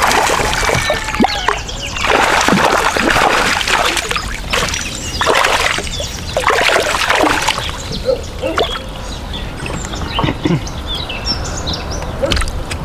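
A hooked largemouth bass thrashing and splashing at the water's surface beside a kayak, in several bursts over the first seven seconds or so, then quieter.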